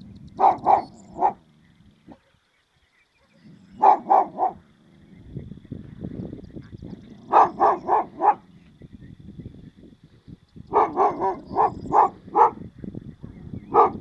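A dog barking in repeated bursts of three to six quick barks, a few seconds apart.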